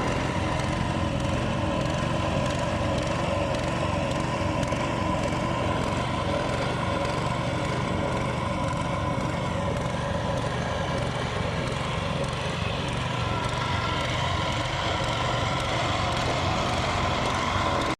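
An engine running steadily with an even hum, such as construction machinery.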